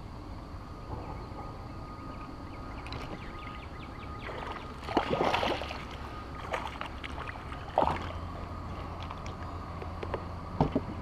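A small hooked fish splashing at the surface, loudest about five seconds in and again briefly near eight seconds, with faint rapid ticking from the fishing reel being wound. A couple of short knocks come near the end as the fish is swung up to the kayak.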